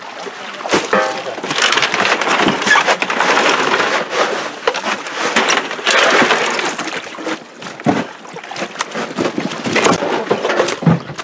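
Wet, busy clatter of freshly harvested milkfish being handled in plastic crates and on a heap of fish, full of sharp knocks and slaps.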